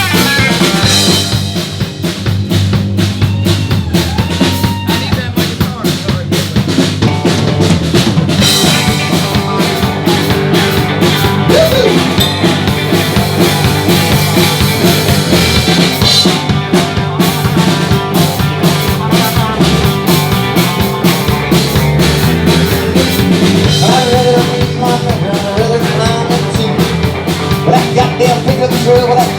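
A live rock band playing an instrumental passage, loud and steady, with the drum kit to the fore: snare, rimshots and bass drum over sustained guitar or keyboard notes.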